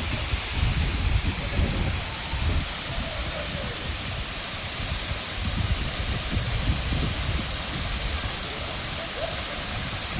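Waterfall's water falling steadily, with an uneven low rumble underneath and faint distant voices.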